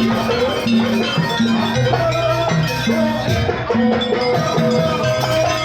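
Javanese jaranan buto music: pitched percussion repeats short low notes in a steady pattern while a long high note is held over it from about two seconds in.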